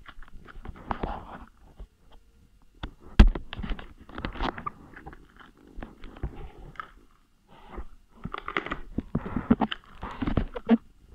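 A ball knocking, scraping and rubbing against the microphone on a tiled floor, in irregular clusters of sharp clicks and crunchy scrapes with short gaps between them. The sharpest knock comes about three seconds in, and there is a busy run of clatter near the end.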